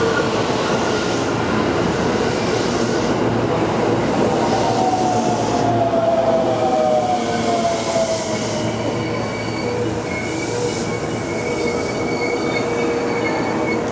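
A JR West 221 series electric train braking to a stop at a platform, with steady wheel and running noise. A falling whine comes in the middle as the train slows, then thin high squeals follow in the last few seconds as it comes to a halt.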